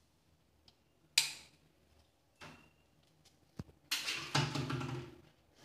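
Sharp clicks of the circuit boards' power switches being flipped, the loudest about a second in. About four seconds in, the small 12-volt DC water pump starts running with a low hum and water flowing.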